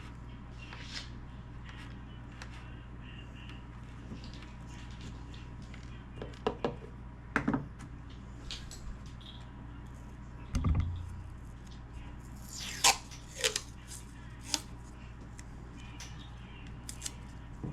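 Small handling noises of speaker wires being twisted together: scattered clicks and rustles, with one dull thump about ten and a half seconds in, over a steady low hum.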